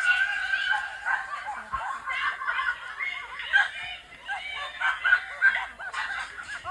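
A high-pitched, squeaky voice making short, snicker-like chirps several times a second, each sliding up and down in pitch.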